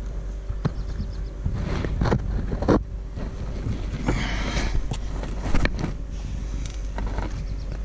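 Scattered clicks, knocks and a brief scrape of hand-tool work at a car's brake assembly, with a steady low hum underneath.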